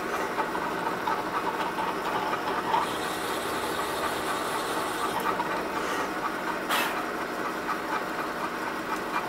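Drill press running steadily while a freshly sharpened counterbore is fed into a 1018 steel block, cutting dry with no oil, as a test of whether the resharpened tool cuts. The cut adds a higher hiss from about three to five seconds in, and there is one short sharp sound near seven seconds in.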